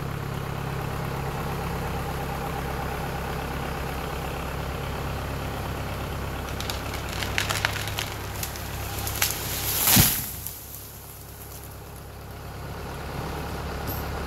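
Pine tree going over on a pull line: a run of sharp cracks as the hinge fibres break, then a loud crash as the tree hits the ground about ten seconds in. An engine idles steadily underneath.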